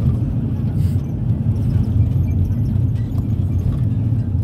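Steady low rumble of a minibus's engine and tyres on the road, heard from inside the moving cabin.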